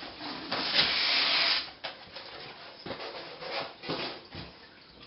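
A foam packing tray scraping against the inside of a cardboard box as it is pulled out: one long scrape about half a second in, lasting about a second, then a few lighter rustles and taps.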